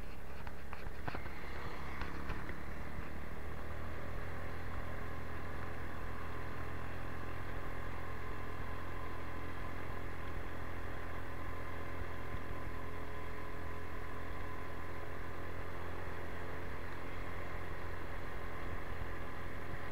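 Motorcycle engine running at a steady speed while riding, with a constant rush of road noise.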